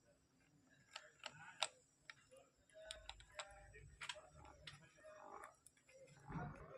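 Faint scattered clicks and taps of the amplifier and its mains lead being handled as AC supply is connected, with a faint low hum coming in about three seconds in.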